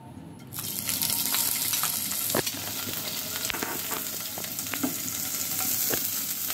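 Shelled prawns hitting hot soybean oil in a frying pan and sizzling steadily from about half a second in, with scattered clicks and taps from a spatula stirring them.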